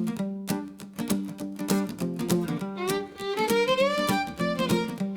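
Instrumental song intro in a bluegrass style: quickly picked acoustic guitar, with a fiddle line sliding upward from about three seconds in.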